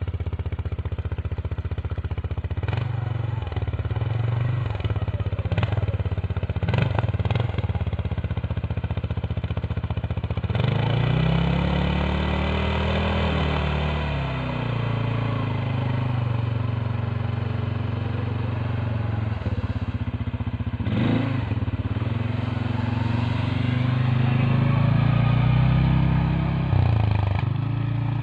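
CFMoto CForce 550 ATV's single-cylinder engine running at low speed as the quad crawls through snow on a slope, with the engine revving up and back down about halfway through and rising again near the end. A few short knocks and clatters come through over the engine.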